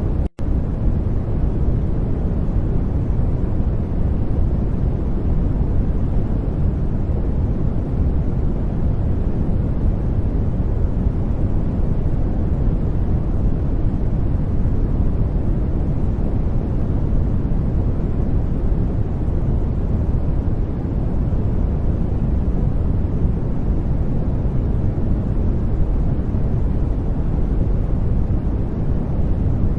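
Steady white-noise-style background hiss, deep and heavy in the low end, the masking track of a subliminal recording. It cuts out for an instant about a third of a second in, then runs on unchanged.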